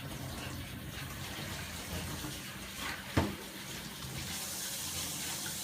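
Kitchen tap running steadily into a sink, with a single knock about three seconds in.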